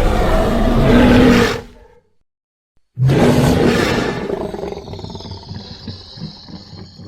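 Two designed dinosaur roars made as a sound effect for Sinotyrannus. The first, already under way, cuts off about two seconds in. After a second of silence the second starts loud and tails off slowly into a low rumble, with a thin high ringing tone above it.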